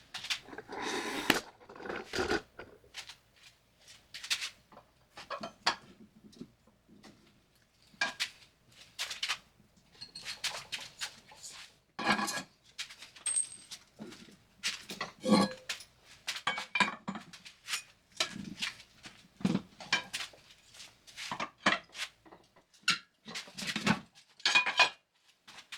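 Manual tire changer at work, its steel mount bar clinking, knocking and scraping irregularly as the tire bead is worked over a steel wheel rim.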